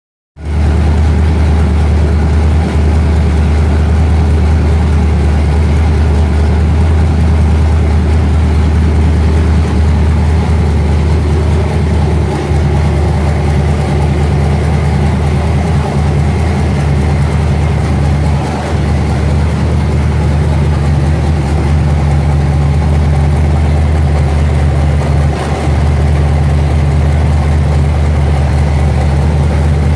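Small-block Chevy 355 V8 with a solid roller cam (585/600 lift) idling steadily, heard from over the open engine bay, exhausting through a 3-inch X-pipe and 40 Series Flowmaster mufflers.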